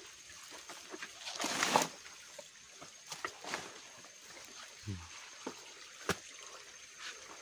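Footsteps and shoe scuffs on a rocky, leaf-covered dirt trail, as scattered clicks and knocks. A longer rustling scrape comes about a second and a half in, a short grunt near five seconds, and a sharp knock about a second later.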